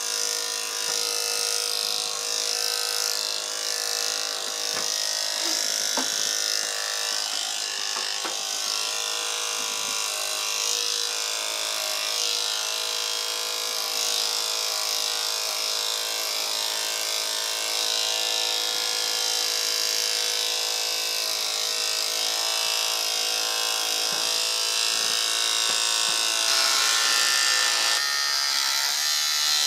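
Electric dog-grooming clippers running with a steady buzzing hum while trimming a dog's face. The hum changes slightly near the end.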